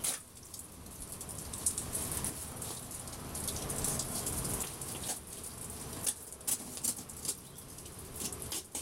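Sealed packaging being cut and pulled open by hand: continuous crinkling and rustling, with a few sharp crackles in the second half.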